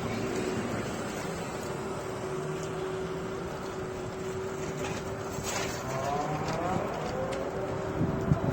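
Street traffic and noise heard from a moving electric scooter, with a steady hum throughout. Around six to seven seconds in, a passing sound briefly changes in pitch.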